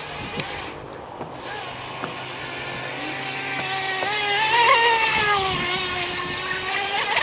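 Radio-controlled speedboat's motor whining at high speed as the boat makes a pass. It gets louder towards the middle and drops in pitch as the boat goes by, with the hiss of its spray at the loudest point.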